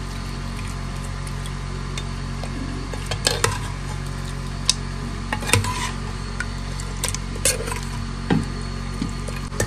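A ladle stirring thick pork curry in a pressure cooker, knocking and clinking against the pot at uneven intervals of about a second, over a steady low hum.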